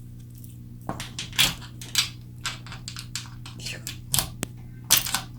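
Small metal bolts and hardware being handled, with irregular clicks and rattles starting about a second in.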